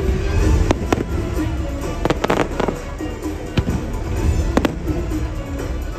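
Fireworks going off in sharp bangs, several of them bunched about two seconds in, over the loud music of a fireworks show soundtrack.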